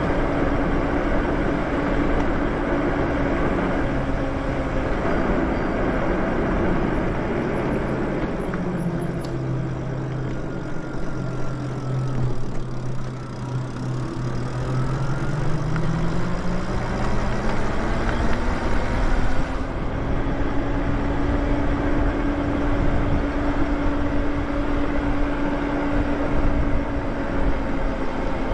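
Wind and road rush from a Lyric Graffiti e-bike on the move, with a steady whine from its drive whose pitch follows road speed. The whine falls in pitch as the bike slows around the middle and rises again as it speeds back up.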